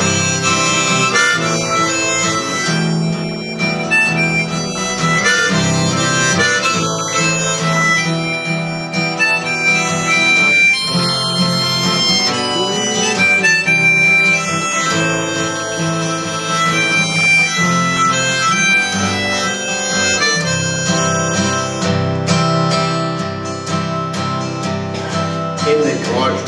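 Harmonica, played in a neck rack, taking an instrumental break between verses of a folk song over a strummed acoustic guitar, with long held notes.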